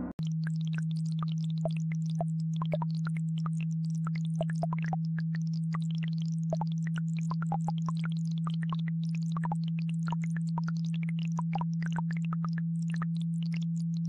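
A steady, low electronic sine tone from an isochronic tone track, with the trickle and bubbling of a babbling brook mixed in. A gong's ring cuts off right at the start.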